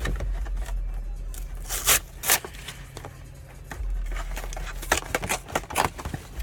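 Packaging of a Pokémon card collection box being torn and handled: two sharp ripping sounds about two seconds in, then a run of short clicks and rustles near the end.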